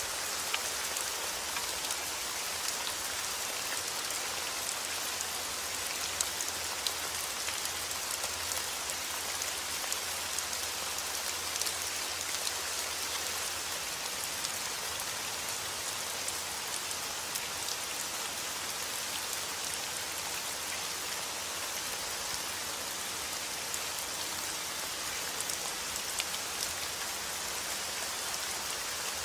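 Steady heavy rain falling, a continuous hiss with many individual drops ticking on a hard surface.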